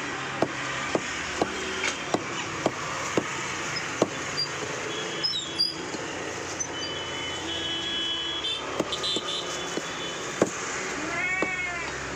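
A heavy cleaver chopping goat meat on a wooden chopping block. Sharp strikes come about twice a second for the first four seconds, then a few scattered strikes. A cat meows near the end.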